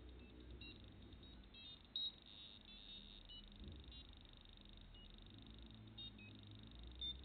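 Arduino breadboard theremin with a 74HC00N chip giving scattered short, high-pitched beeps and chirps, two sharper ones about two seconds in and near the end, over a faint low hum. The circuit is not working properly.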